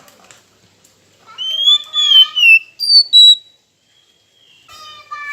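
Oriental magpie-robin (kacer) singing: loud, clear whistled notes that glide up and down, a short pause, then a new phrase starting near the end.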